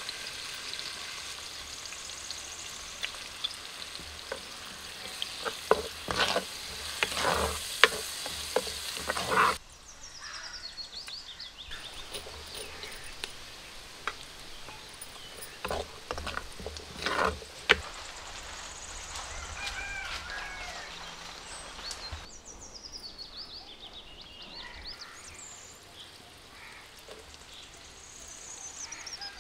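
Oil and spices sizzling in a clay pot as ingredients are added and stirred, with the ladle knocking and scraping against the pot in a run of sharp clicks. Birds chirp faintly in the background in the second half.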